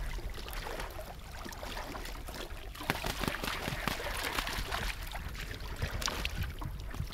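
Shallow marsh water splashing and sloshing as people wade and work in it beside a boat, with a run of quick splashes from about three seconds in.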